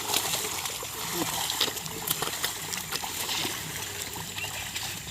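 Water and mud splashing steadily as bullocks drag a leveller through a flooded paddy field.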